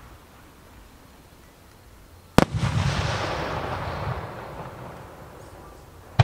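Fireworks display: an aerial shell bursts with one sharp, loud bang about two seconds in, followed by a long rolling rumble that fades away over the next few seconds. Another sharp bang comes right at the end.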